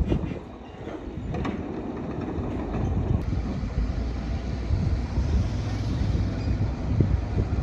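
Bulldozer engine running steadily at work, with a few metallic clanks in the first couple of seconds.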